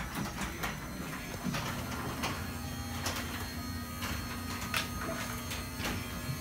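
Guardian 3/4 hp belt-drive garage door opener running as it closes the door: a steady motor hum with occasional light clicks.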